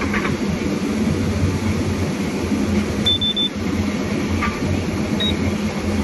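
Forestry harvester running steadily with a low engine hum while its crane and harvester head work. Three short high electronic beeps sound about three seconds in, and one more near the end.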